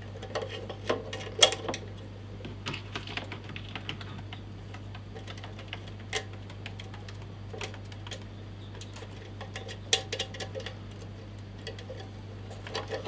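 Scattered light clicks and taps of small metal and plastic parts as a bench grinder's clear eye shield is fitted by hand and its washers and screw are handled, with the sharpest knocks about a second and a half in and about ten seconds in. A steady low hum runs underneath.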